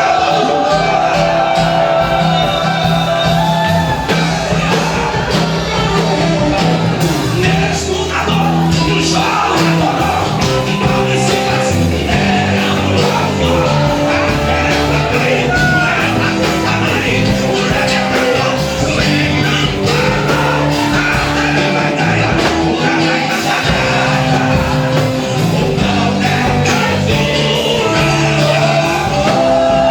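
Live gospel band music with a steady bass line and loud singing, in a large hall.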